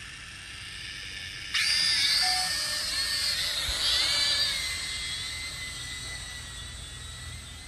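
JX815 toy camera quadcopter's motors and propellers whining, then jumping sharply louder about a second and a half in as it lifts off. The pitch wavers up and down as it climbs, then settles into a steadier whine that slowly fades as it flies off.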